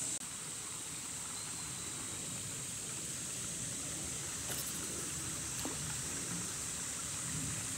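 Quiet outdoor ambience on the water: a steady faint hiss, strongest high up, with a couple of faint ticks around the middle.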